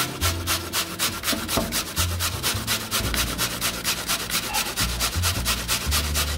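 Peeled zucchini being rubbed against a stainless steel box grater: quick, even rasping strokes, about six a second.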